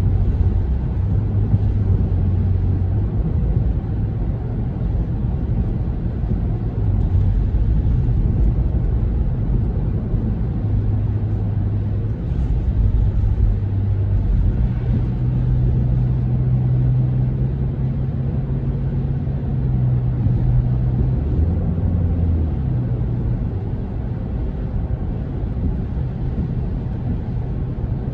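Steady low rumble of a car driving on a wet road, heard inside the cabin: tyre and engine noise with a low hum that shifts up in pitch about halfway through and drops back later.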